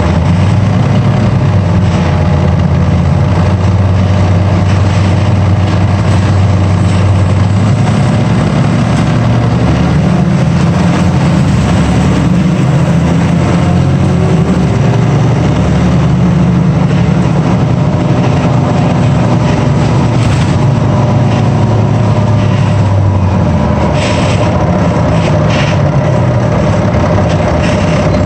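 Heavy vehicle engine running steadily and loudly, its low drone shifting up and down in pitch a few times as engine speed changes.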